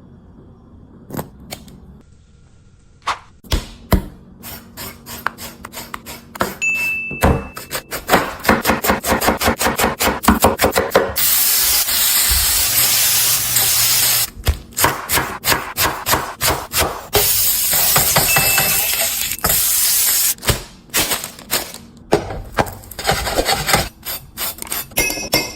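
Cooking sounds: scattered knife knocks and a run of fast, even chopping on a cutting board, with two stretches of loud, steady sizzling of food frying in hot oil.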